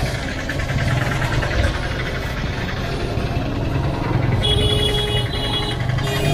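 Motorcycle engine running at low speed in slow, congested traffic, with a steady low rumble. A vehicle horn beeps twice near the end.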